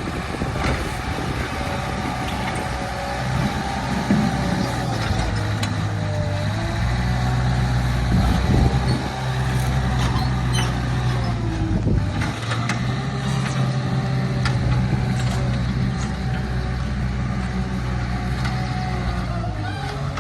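Small bulldozer's diesel engine working, a steady low drone whose pitch shifts up and down several times, with a wavering whine above it and scattered metallic clanks and knocks.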